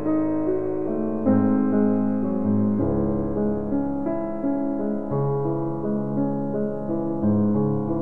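Slow classical solo piano music, with low bass notes held under changing chords.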